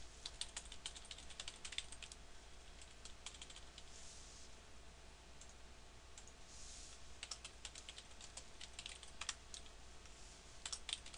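Computer keyboard typing in short bursts of quick, faint key clicks with pauses between them, as an email address and subject line are entered.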